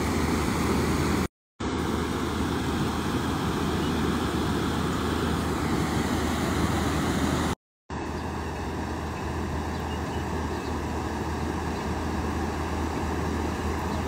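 Steady rushing of floodwater pouring through a wadi and over a low crossing. It cuts out to silence twice, briefly, about a second in and again halfway through.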